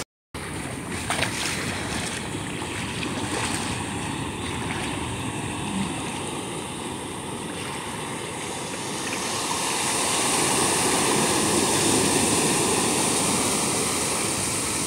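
Ocean surf breaking and washing up a sandy beach, a steady rushing wash that swells louder about two-thirds of the way through.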